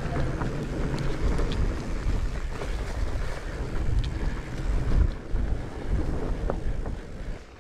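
Wind buffeting an action-camera microphone over the low, uneven rumble of mountain bike tyres rolling along a rough grassy singletrack, with a few faint clicks and rattles from the bike.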